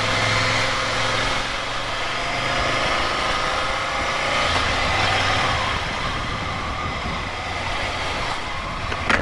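Ducati Monster 797's air-cooled L-twin engine running as the motorcycle rides along at low speed, with a steady rush of wind noise on the microphone.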